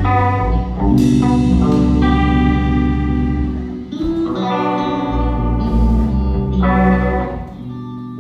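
Rock band playing guitar chords over a heavy bass line, the chords changing every few seconds; near the end the playing stops and the last chord rings out.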